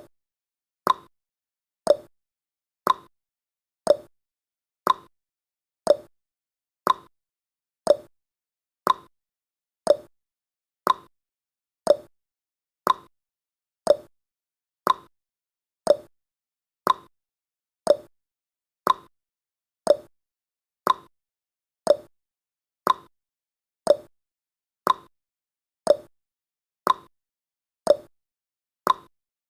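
Clock-tick sound effect of a countdown timer, one short sharp tick every second, marking off the final seconds of the countdown.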